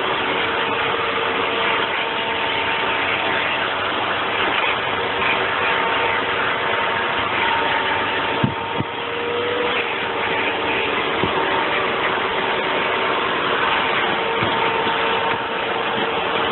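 Vacuum cleaner motor running steadily, its hose nozzle drawing air as it is worked over a dog's coat, with a couple of brief knocks about halfway through.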